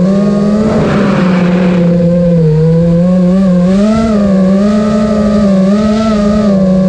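FPV racing quadcopter's Emax RS2205 2300kv brushless motors and props buzzing, the pitch rising and falling as the throttle changes. A burst of rushing air comes about a second in.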